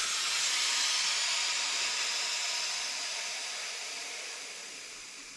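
Pressurised air hissing out of a cooling-system pressure tester as the 7 PSI held in the Dodge Journey 2.4L's coolant system is vented, fading steadily as the pressure bleeds off. The release comes after a passed leak test on the new thermostat housing.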